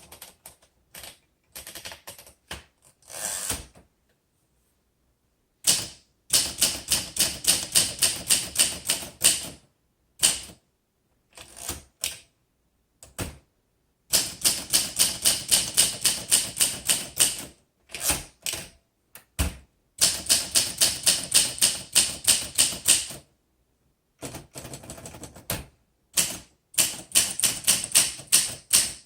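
1959 Olympia SM3 manual typewriter being typed on: runs of rapid, sharp key strikes, several a second, broken by short pauses.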